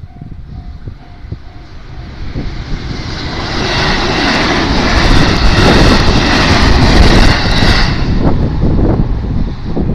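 JR 281 series electric limited express train passing a level crossing at speed: the rumble of wheels on rail and rushing air builds from about two seconds in, stays loud for about four seconds, then falls away. At the very start the crossing's warning bell rings briefly, with a repeating tone.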